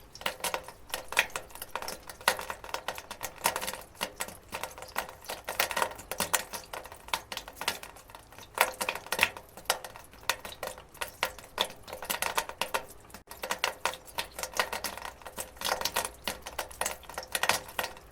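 Water dripping and trickling onto a metal gutter: a dense, irregular patter of sharp drips, several a second.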